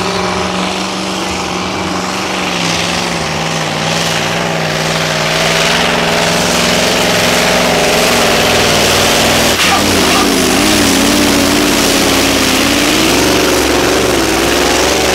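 Diesel engine of a Magirus Deutz pulling truck at full throttle, loud and continuous as it drags a weight-transfer sled. Its pitch holds fairly steady, drops about ten seconds in, and then wavers up and down as the sled's load builds.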